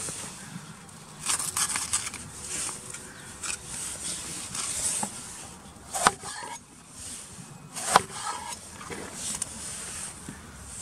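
A kitchen knife slicing a red bell pepper on a wooden cutting board: crisp cutting rustles through the flesh, and two sharp knocks of the blade on the board about two seconds apart in the second half.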